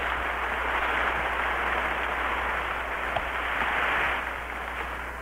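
Large stadium crowd applauding, a dense even clatter that dies away about four seconds in, heard on a 1958 recording with a steady low hum underneath.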